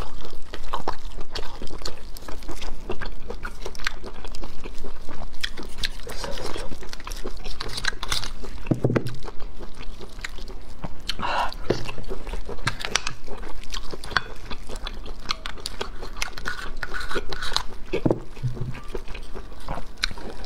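Close-miked chewing of steamed abalone: wet mouth sounds with many short clicks and smacks.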